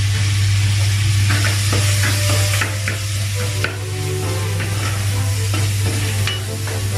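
Ground meat sizzling as it sautés in a metal pot, with a wooden spoon stirring it and scraping and knocking against the pot from about a second in.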